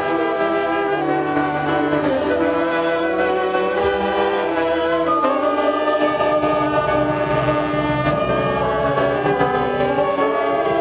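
A choir singing in held, sustained chords with instrumental accompaniment.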